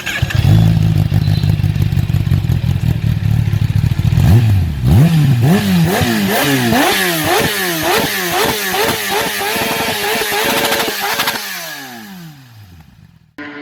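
Kawasaki ZX10RR's inline-four engine idling, then revved in quick throttle blips about twice a second, and its revs falling away near the end.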